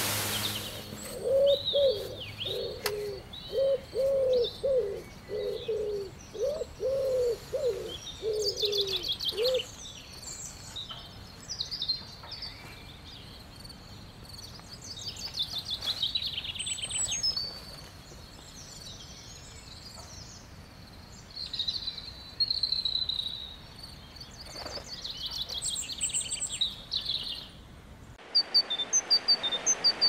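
Forest birdsong: small songbirds singing high chirps and trills throughout, joined for the first ten seconds or so by a low call repeated over and over.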